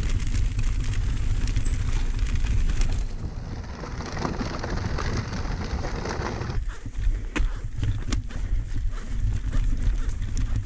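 Mountain bike rolling downhill over a rough trail, heard from a camera on the bike: a steady low wind rumble on the microphone with tyre and rattle noise. From about two-thirds in, separate sharp knocks as the bike goes over stones.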